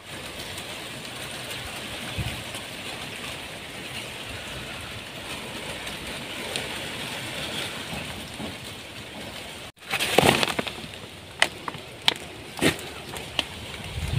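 Steady outdoor hiss, then, about ten seconds in, a run of sharp, irregular crackles and rustles of dry garden vegetation being brushed or trodden.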